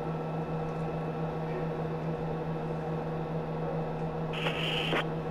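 Steady hum of the Soyuz spacecraft's cabin audio feed during the second-stage burn, a low drone under a faint hiss, with a short burst of hiss about four and a half seconds in.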